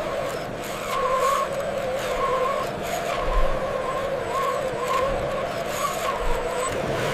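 Whine of a radio-controlled model vehicle's small electric drive motor, its pitch rising and falling in short repeated swells as it is driven, with a few low thumps in between.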